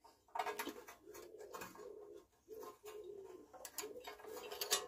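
Faint, repeated cooing of a pigeon in short phrases, with a few light clicks and rubbing from an electrical wire being handled and pulled.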